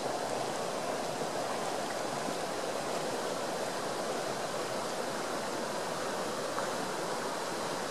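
Frio River water rushing steadily, a constant even hiss.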